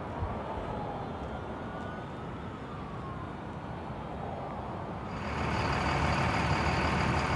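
Heavy aircraft tow vehicle's engine running, a steady low rumble that gets louder about five seconds in, with a thin, steady high whine over it.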